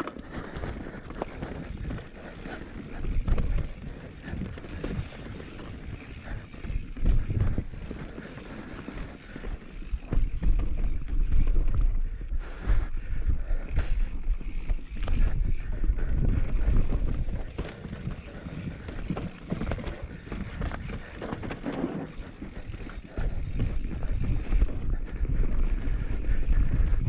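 Wind buffeting the microphone of a mountain bike's on-board camera during a fast descent, with rumble and knocks from the tyres and bike over a rocky dirt trail. It grows louder from about ten seconds in.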